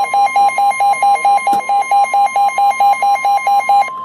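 Emergency alert tone: a steady electronic tone around 1 kHz, the NOAA Weather Radio warning alarm tone that comes before a warning broadcast. A lower beep pulses over it about five times a second and stops just before the end.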